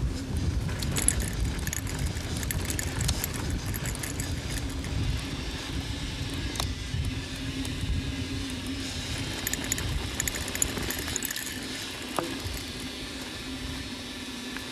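Mountain bike riding fast down dirt singletrack: wind rumble on the helmet or bike camera, tyres rolling over the dirt, and the bike rattling and clicking over small bumps. The rumble eases near the end.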